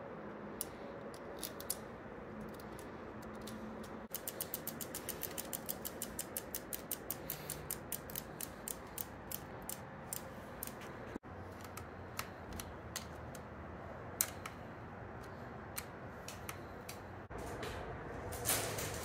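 Bicycle freewheel ratcheting as the rear wheel and chain are turned on a workstand. About four seconds in a quick run of ticks starts, around seven a second, then slows and thins out, leaving scattered single clicks.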